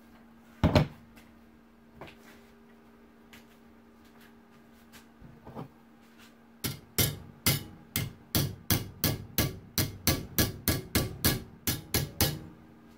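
Hammer striking a strip of sheet steel clamped in a bench vise, bending a curve into it: one hard blow about a second in, a few light taps, then a quick run of about eighteen blows at roughly three a second over the last six seconds. A steady low hum sits underneath.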